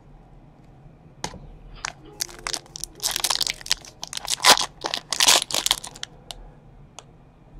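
Foil wrapper of a 2017 Panini XR Football card pack being torn open by hand and crinkled: a quick run of sharp crackling tears that starts about a second in, is thickest over the middle few seconds and trails off near the end.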